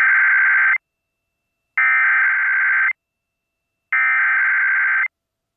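Emergency Alert System SAME header: three bursts of digital data tones, each about a second long and about a second apart, sending the coded header of a Required Monthly Test.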